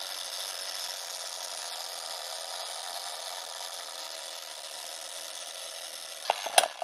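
Old film projector sound effect: a steady mechanical whirr and rattle, ending with two sharp clicks near the end.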